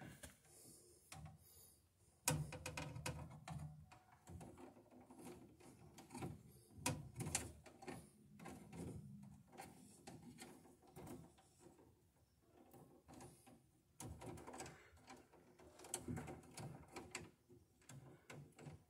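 Faint, irregular clicks, taps and scrapes of stiff electrical cable being handled and pushed into place inside a metal breaker panel.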